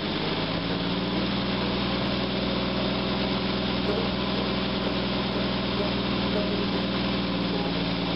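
Jeep CJ7's 258 cubic-inch (4.2 L) inline-six engine running at a steady idle, heard up close in the engine bay by the carburetor.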